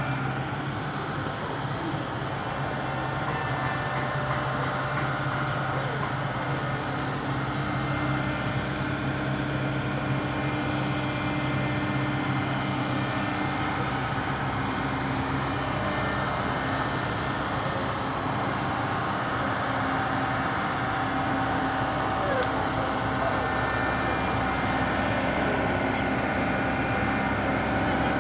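A large engine running steadily at an unchanging pitch, with a constant hum.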